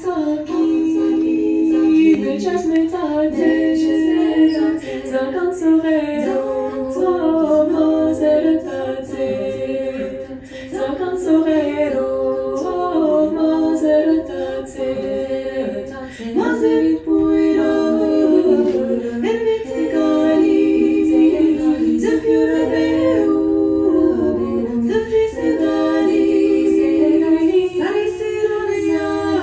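Unaccompanied choir singing in layered harmony, with long held notes that shift from chord to chord.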